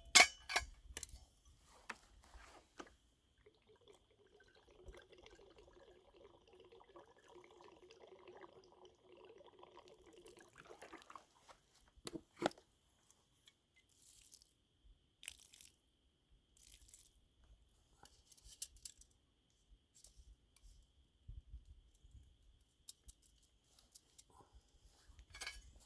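Faint, scattered clinks and knocks of Kelly Kettle camp-stove parts being handled and packed, with a stretch of soft rustling between about five and eleven seconds in.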